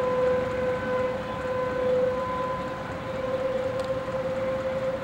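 Outdoor tornado warning siren sounding one steady tone, its loudness swelling and fading slightly, over a steady background rush.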